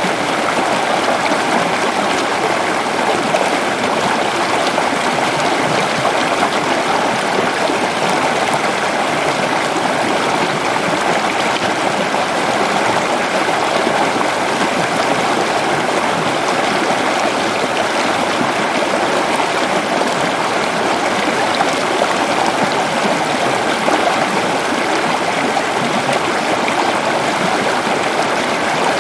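Waterfall and rushing stream water, a loud steady splashing and gurgling that does not change.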